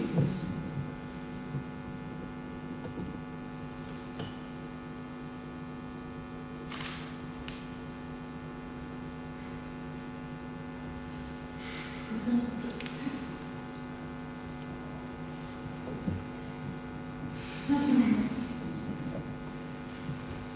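Steady electrical mains hum, with a few brief louder sounds about a third of the way in, past the middle and near the end.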